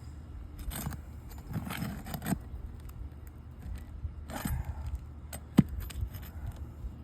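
Hand tools scraping and clicking against asphalt roof shingles as an old shingle is worked loose, with a sharp metallic click about five and a half seconds in.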